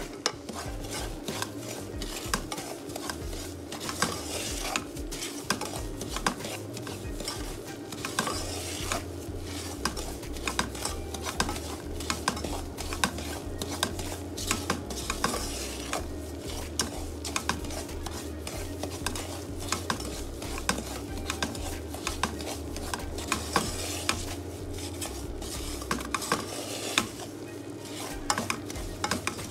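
Plastic spoon-spatula stirring and scraping thick semolina halwa in a nonstick pan: irregular scrapes and knocks against the pan throughout, over a light sizzle from the butter-cooked semolina.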